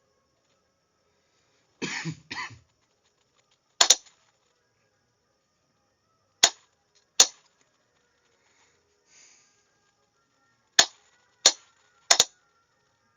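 A series of sharp, irregularly spaced clicks, some in close pairs, with two rougher, longer bursts about two seconds in and near silence in between; no steady Morse beeps are heard.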